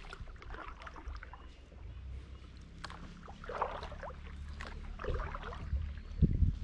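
Kayak paddling on calm water: small splashes and drips from the paddle blades, with a few low thumps near the end.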